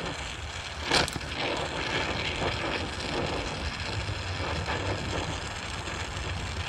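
Welder laying more weld on a steel brace under a truck bed: a steady, noisy hiss with a sharp click about a second in.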